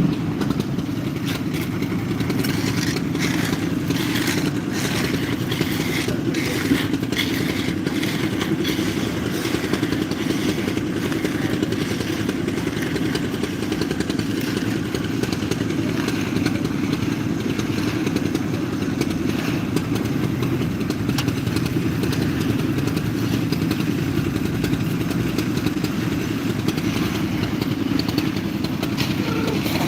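Heavy construction machinery engine running steadily during a concrete pour, with a run of clattering and scraping knocks from about 2 to 9 seconds in.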